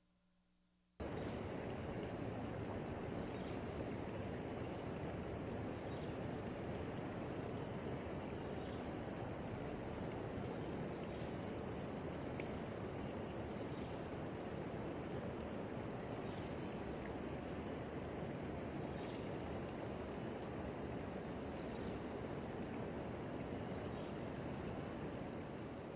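Steady chorus of insects such as crickets, several continuous high-pitched trills held at a constant pitch over a steady hiss. It starts abruptly about a second in and fades near the end.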